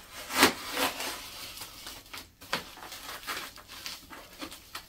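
Plastic packaging wrap crinkling and tearing as an axe bit slices into it, in a series of short rustling strokes, the loudest about half a second in.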